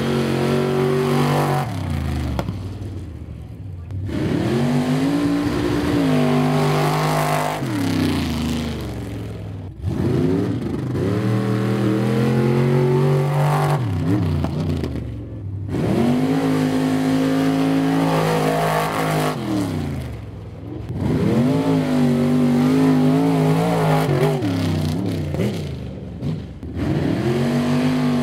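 Modified pickup trucks' engines revving hard and accelerating through a dirt speed pit, run after run. The pitch climbs and wavers as each truck pulls through, and each run cuts off abruptly before the next begins.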